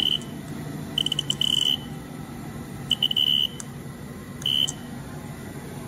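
Short high-pitched electronic beeps from a Haas CNC mill's control, in four groups: one at the start, a quick run ending in a longer beep about a second in, another about three seconds in and a brief one near the end. Under the beeps runs the steady low hum of the VF-0E's vector-drive spindle motor.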